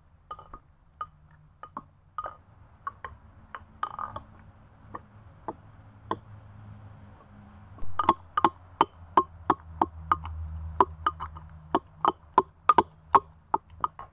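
Brass pestle pounding in a brass mortar: metallic clinks with a short ring. They come slowly and softly at first, then from about halfway faster and louder, about three strikes a second.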